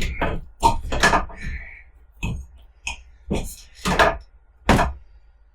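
A series of irregular knocks and clunks, about nine sharp separate impacts spaced unevenly with short quiet gaps between them.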